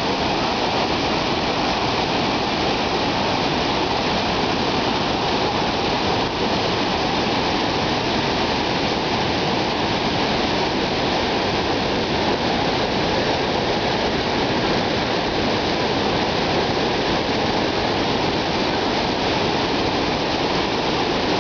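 A large, high-volume waterfall: a wide river pouring over rocks and churning into white water, a loud, steady, unbroken rush.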